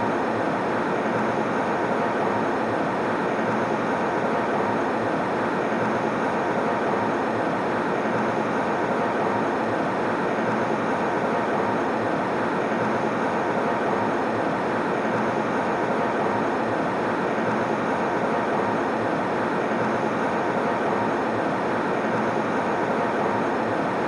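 Airliner cabin noise in cruise flight: a steady, even rush of engine and airflow noise that does not change.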